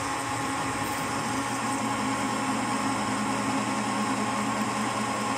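Small radial arm drill press running under power feed, its motor and drive humming steadily with a steady whine while the twist drill cuts through a metal plate under load.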